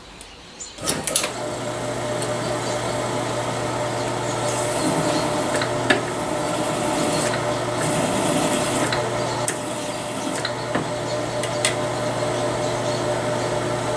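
Small electric motor of a reloading case-prep tool starting about a second in and running steadily, with the rasping of a cutter swaging out the primer-pocket crimp on .223 brass cases and a few small clicks.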